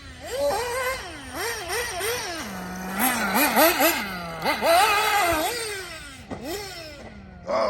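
Remote-control car's motor revving up and down as it is driven around the course, its pitch rising and falling several times a second, with brief steady stretches between bursts.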